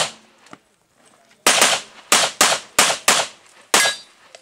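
Pistol shots in an IPSC stage run: one shot at the start, a pause of about a second and a half while the shooter moves, then about seven shots in quick succession, some fired as close pairs.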